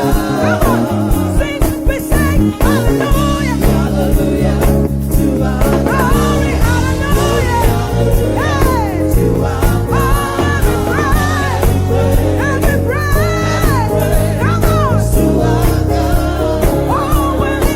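Live gospel praise music: a sung melody over a band with a steady drum beat and bass.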